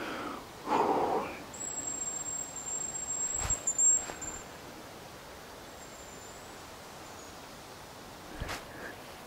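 High, thin hazel grouse whistle, held level for about three seconds, with a fainter short one later. A brief rustle comes just before it, and there are two sharp knocks.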